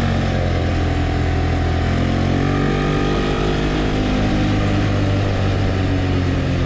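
ATV engine running steadily while riding, its pitch drifting gently up and down.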